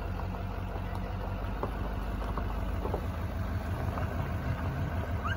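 A vehicle engine idling steadily, a low even rumble, with a few faint clicks over it.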